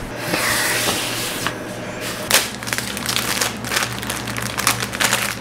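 Plastic crinkling and rustling as it is handled: a soft rustle at first, then a run of sharp crackles through the second half, over a faint steady low hum.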